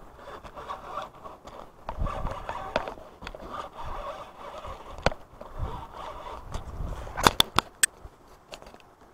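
Fishing reel being cranked to wind in line, an uneven scraping sound, with a quick cluster of sharp clicks about seven seconds in.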